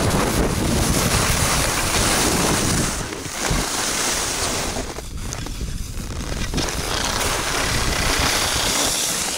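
Wind rushing over an action camera's microphone and skis scraping on packed snow during a fast downhill run, dipping briefly twice.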